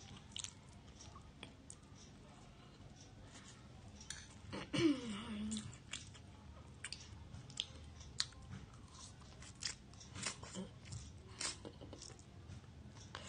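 Close-up eating noises of spicy fried instant noodles: wet chewing, lip smacks and noodle slurps, scattered and irregular, with one louder, longer slurping noise about five seconds in.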